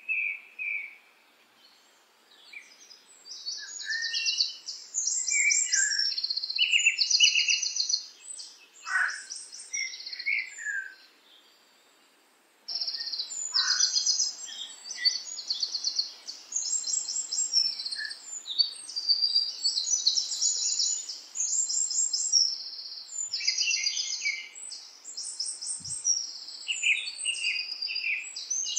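Small songbirds singing: rapid, high chirps and trills, several birds overlapping, with a short pause near the middle before the song starts again abruptly.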